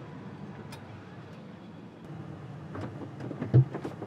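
Knocks and footfalls of a person climbing up metal airstairs into a small jet's cabin, a quick cluster of thumps in the last second and a half, the loudest a low thump about three and a half seconds in, over a steady low background noise.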